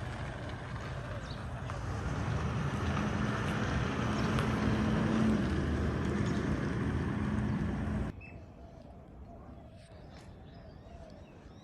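Powered hedge trimmer running steadily, cutting out abruptly about eight seconds in, after which birds chirp.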